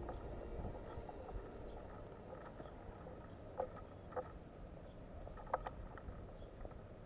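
Quiet outdoor background with a faint low rumble, broken by a few short sharp clicks or knocks in the middle, about two seconds apart and then one more.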